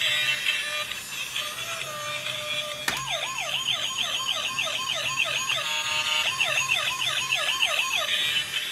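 Battery toy police car's electronic siren sounding from its small speaker: a rapid rising-and-falling wail about three times a second, starting with a click about three seconds in and broken once by a short steady tone. Before it, other steady electronic tones play.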